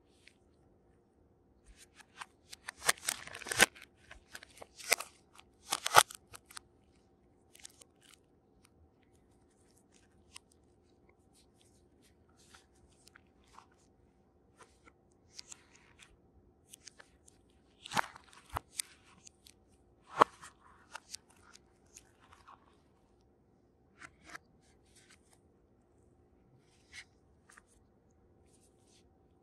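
Plastic film crinkling and cardboard packaging rustling and tapping as a smartphone is wrapped and put back in its box by hand. It comes in short, scattered bursts with quiet gaps, the loudest in the first few seconds and again around the middle.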